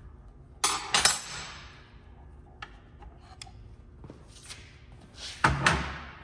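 Metal tools clanking on a steel workbench: two ringing clanks about a second in, a few light clicks, then another loud ringing clank near the end.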